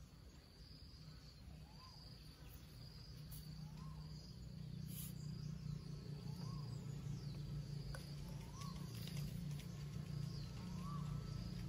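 Outdoor natural ambience of insects and birds: a short high chirp repeats about once a second, and a short rising whistle comes every second or two. Under them a low hum swells from about four seconds in.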